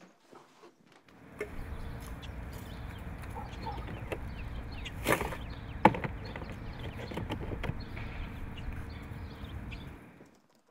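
Steady outdoor background noise while a plastic curbside trash can is handled: a rustle about five seconds in and a sharp plastic knock just before six seconds, as of the lid being dropped shut.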